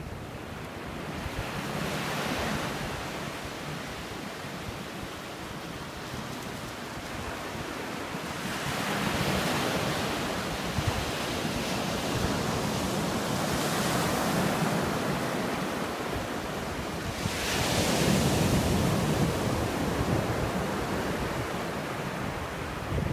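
Ocean surf breaking and washing over the sand, swelling and easing as each wave comes in. The loudest surge is about three-quarters of the way through.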